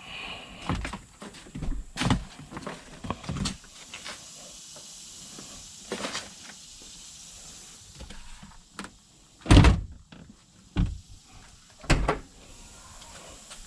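Scattered knocks, bumps and rustles of hands working a wire through a vehicle's body and interior panels, with a heavy thump about nine and a half seconds in and another near twelve seconds.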